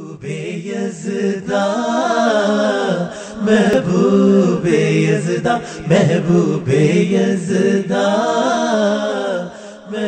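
Intro music of a voice chanting a long, wavering melody in the style of a Ramadan nasheed, heard as long held phrases that fade near the end.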